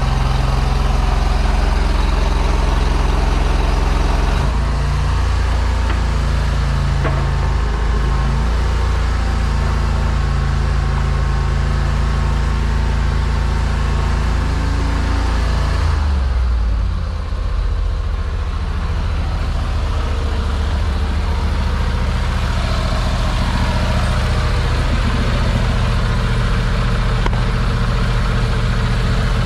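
Engine of a high-pressure drain jetter running steadily. Its note shifts about four seconds in, and again around seventeen seconds in with a brief dip in level.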